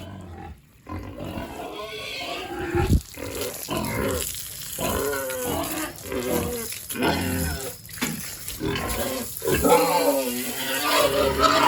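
Pigs squealing loudly in a run of wavering calls, each about a second long with short breaks between.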